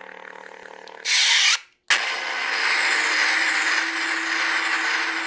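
Sound board of a Proffie neopixel lightsaber replica playing its hum: a buzzing, hissing drone with steady tones. About a second in there is a short loud rush of noise and a brief dropout, then the hum runs on steadily.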